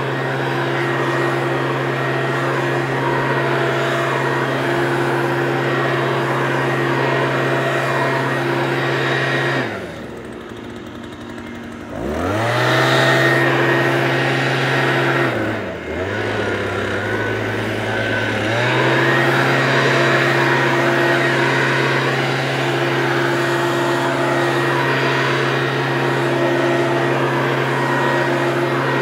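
Leaf blower running steadily at full speed. It is let off about ten seconds in, spins back up two seconds later, dips briefly again around sixteen seconds, then runs steadily on.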